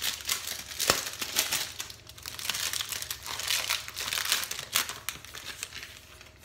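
Crinkling of the wrapping around a sheet of pastry as it is pulled open by hand. A dense run of crackles that thins out near the end.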